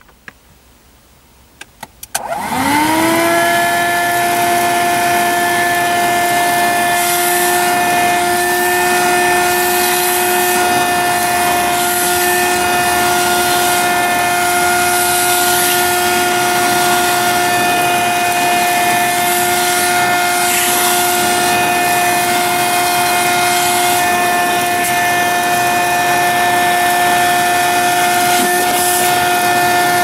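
Black & Decker PD1200AV handheld car vacuum cleaner switched on about two seconds in. Its motor spins up quickly to a steady whine with rushing air, then keeps running while vacuuming car carpet.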